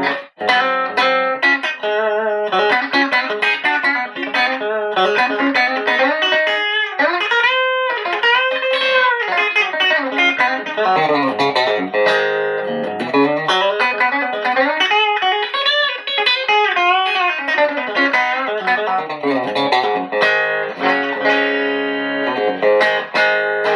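WestCreek TT-20 Telecaster-style electric guitar played through an amplifier on its bridge pickup: a run of notes and chords with several string bends.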